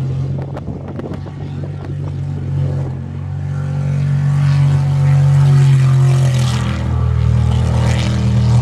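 Sprint boat's engine running hard around the course: a steady low drone with shifting engine tones, growing louder toward the middle and easing off near the end.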